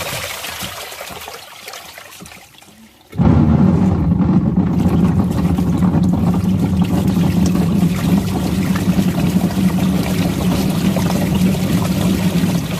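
Washing machine churning water: the sound dies away over the first three seconds, then the machine starts again suddenly with a steady motor hum under the sloshing water.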